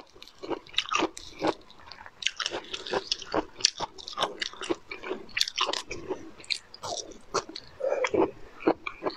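Close-miked chewing and crunching of a crisp, fibrous food, peeled bamboo shoot, with many sharp irregular crackles and wet mouth clicks.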